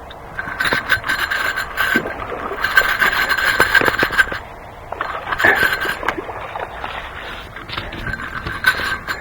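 Fishing reel being cranked in bursts while a hooked largemouth bass is fought in: a steady whir from the reel's gears, in stretches of one to two seconds with short pauses between.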